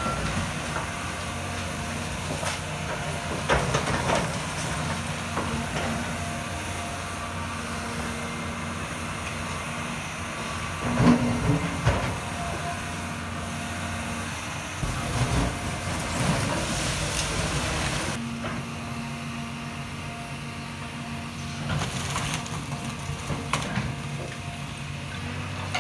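John Deere tracked excavator's diesel engine running steadily while the machine pulls down a brick building, with masonry and debris crashing down several times, loudest about eleven seconds in.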